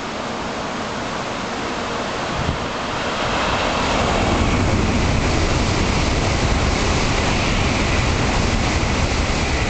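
Nozomi Shinkansen bullet train passing through the station at speed without stopping: a rushing rumble that swells about three seconds in and stays loud and even as the cars sweep past.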